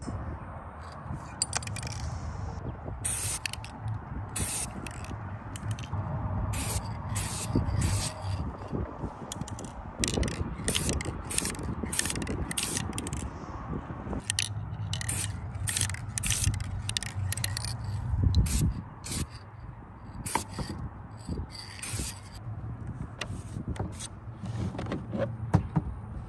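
Krylon Fusion aerosol spray paint can spraying in many short hissing bursts, light passes of paint over book page edges, with a low rumble underneath.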